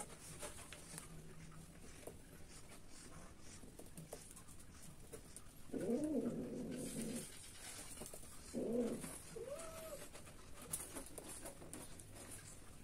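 Three low animal calls, each rising and then falling in pitch: a longer one about halfway through, then two shorter ones close together, the last a little higher.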